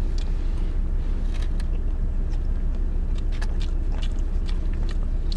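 Steady low rumble with scattered small clicks and crunches of someone eating.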